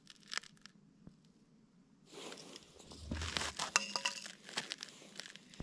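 Faint crinkling, crackling rustle with many small sharp clicks, starting about two seconds in, as an ice angler moves his arms and handles his line; a few isolated clicks come before it.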